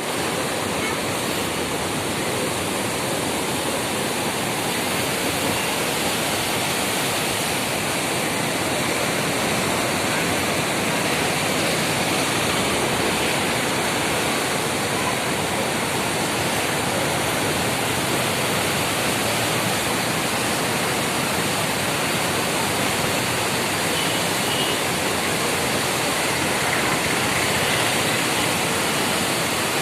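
Floodwater of the Krishna River rushing steadily, a constant unbroken wash of moving water.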